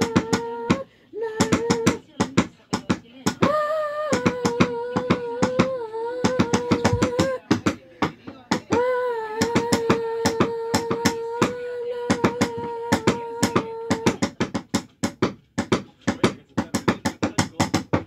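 A voice holds long, steady sung notes, breaking off and starting again several times, over a fast, even run of sharp clicks. The singing stops about fourteen seconds in and the clicks carry on alone.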